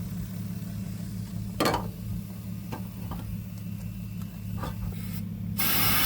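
A car engine idling steadily with a low hum, with a few light knocks. Near the end comes a loud hiss lasting about a second and a half.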